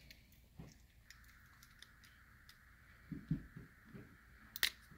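Faint, scattered small clicks and taps of fingers working the stiff opening door of a 1/64 Majorette diecast car, with a short low murmur of the voice about three seconds in.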